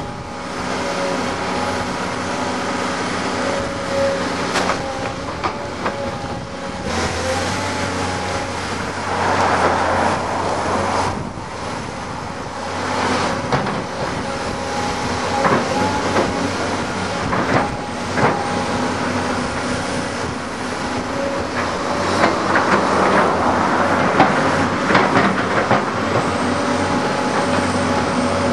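Tracked excavator at work: its diesel engine runs steadily under load, with frequent metallic clanks and knocks from the bucket and tracks.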